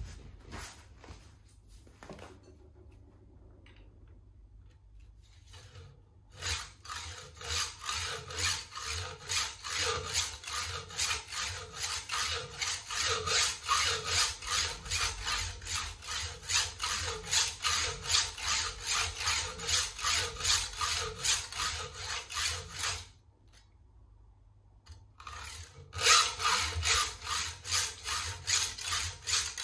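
Hand hacksaw sawing with steady back-and-forth strokes, about two a second. It starts about six seconds in, stops for a couple of seconds near the end and starts again. There is a single knock at the very start.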